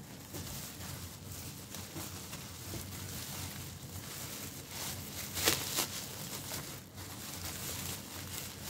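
Plastic bubble wrap being handled and peeled open by hand, crinkling and crackling throughout, with louder crackles about five and a half and seven seconds in.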